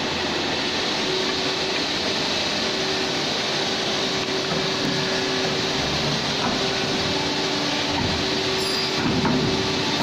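Hydraulic power unit of a CNC pipe bending machine running, a steady hum with hiss.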